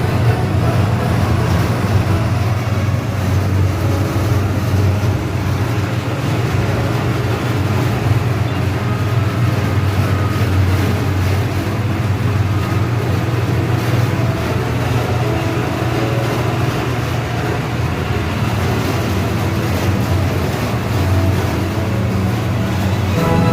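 Small petrol engine of a sugarcane juice machine running steadily, a constant low hum.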